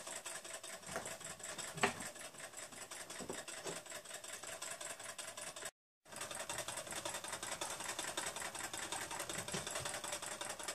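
Small model Stirling engine running with a faint, rapid, even mechanical ticking. A single louder knock comes about two seconds in, and the sound cuts out for a moment just past the middle.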